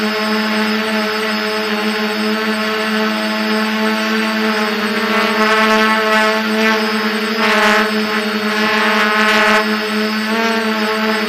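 DJI F450 quadcopter's electric motors and propellers, one motor with a dodgy bearing, running in flight with a steady buzzing hum. It surges louder several times around the middle as the motors speed up.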